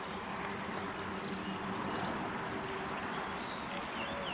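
Songbirds singing: a fast trill of repeated high, downward-sliding notes in the first second, then scattered thin high notes and a few short chirps near the end. A faint steady low hum runs underneath.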